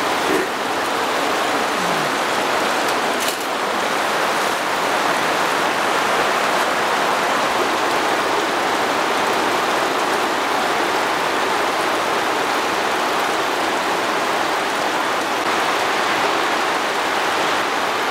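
Heavy rain pouring down steadily in a sudden cloudburst, a dense, even hiss of rainfall.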